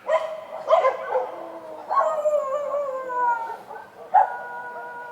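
Dogs barking and howling: two short barks, then two long howls, each starting sharply and sliding slowly down in pitch, with more than one dog calling at once.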